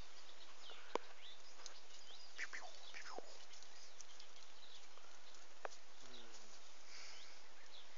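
Steady outdoor background hiss with a few faint, falling bird calls and occasional light clicks.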